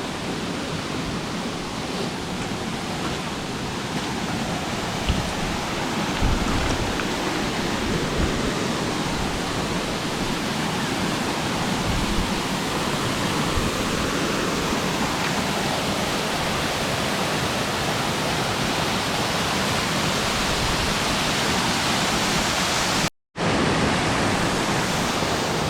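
Waterfall pouring close by: a loud, steady rush of falling water. The sound cuts out for an instant near the end.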